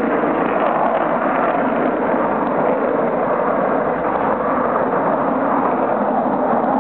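Panavia Tornado's two RB199 turbofan engines at takeoff power during the takeoff run and liftoff: a loud, steady jet rushing noise.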